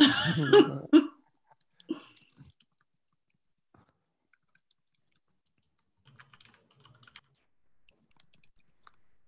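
A short burst of laughter in the first second, then faint, scattered clicking of a computer keyboard being typed on.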